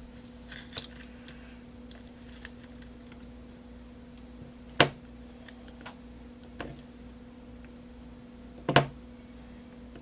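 Small metal clicks and scrapes of a thin pick tool working at the retaining clip on the back of a lock cylinder, with two sharper clicks about five and nine seconds in. A faint steady hum runs underneath.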